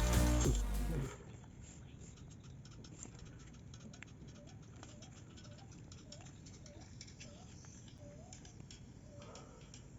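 Electronic music cuts off about a second in. After it come faint scattered small clicks and taps, with a faint short chirp repeating about once a second.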